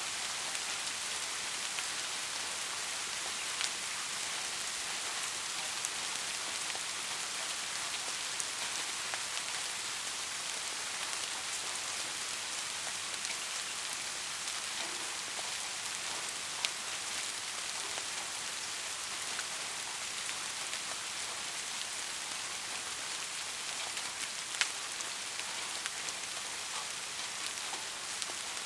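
Heavy rain falling steadily, a dense even hiss, with a few louder single drops ticking out now and then.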